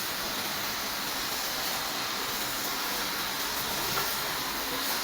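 Steady hissing noise from a one-tonne aluminium melting furnace on a test run, even in level with no rhythm.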